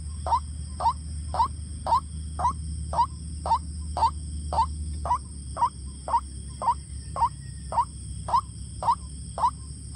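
White-breasted waterhen calling: a monotonous string of short notes, each sliding upward, repeated evenly about twice a second.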